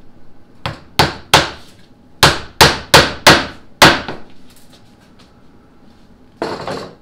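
Claw hammer driving a nail into two stacked sheets of half-inch MDO plywood: eight sharp strikes over about three seconds, with a short pause after the third. A brief scraping noise follows near the end.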